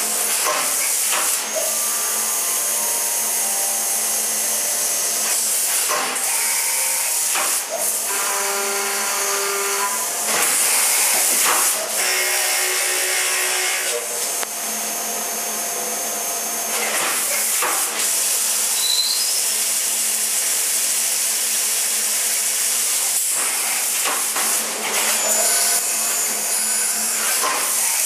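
Brother Speedio S1000X1 CNC machining center cutting an aluminum casting under flood coolant: a steady hiss of coolant spray over a low hum, with whining cutting tones from the boring, drilling and milling passes. The sound changes abruptly every few seconds from one cut to the next.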